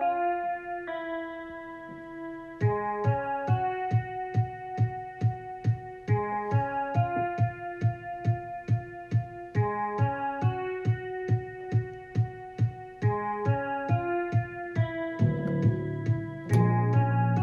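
Music: a keyboard plays a repeating pattern of notes, a steady beat joins about two and a half seconds in, and a fuller, louder low layer comes in near the end.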